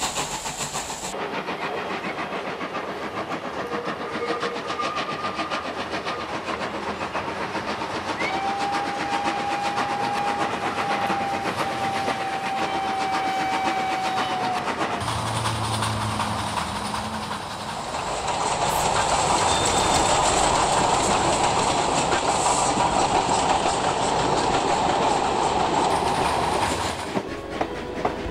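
Steam train running, with a long steady whistle of about six seconds a third of the way through. The running noise changes abruptly several times and is loudest in the second half.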